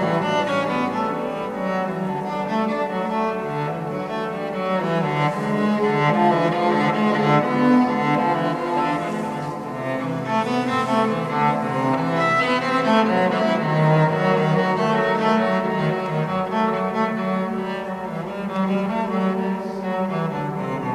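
Cello bowed, playing a continuous melodic line of changing notes without a break, with the lowest notes low in the instrument's range.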